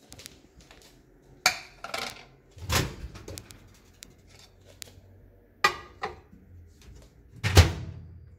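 A series of knocks and clatters from a ceramic plate and a microwave oven door being handled, ending in a loud thump near the end.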